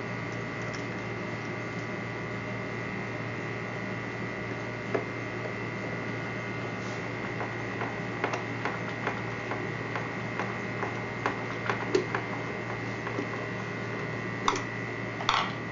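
Steady electrical hum with scattered light clicks and taps as small plastic and metal parts of a steam iron are handled during reassembly; the clicks come more often in the second half, with a few louder ones near the end.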